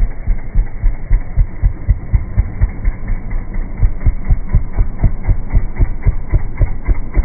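Royal Enfield single-cylinder four-stroke engine running under throttle with a steady pulsing exhaust beat, about five pulses a second, as the bike is spun in a burnout on loose dirt.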